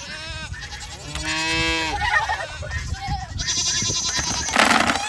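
Goats bleating several times, one long wavering bleat near the middle. Near the end, feed pellets start pouring from the hopper chute into a plastic bucket with a dense rattling hiss.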